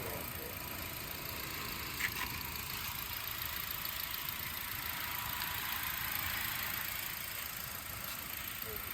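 A car engine idling steadily, with one brief click about two seconds in.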